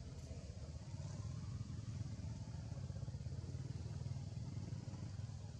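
Low, steady background rumble with a faint hiss above it, a little stronger from about a second in.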